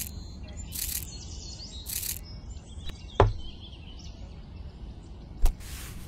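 Small birds chirping, with short rustles roughly once a second and two sharp knocks, one a little past the middle and one near the end.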